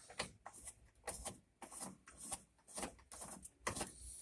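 Flathead screwdriver working the headlight switch's retaining nut counterclockwise: a faint, irregular run of small metal scrapes and clicks as the tool bites and slips.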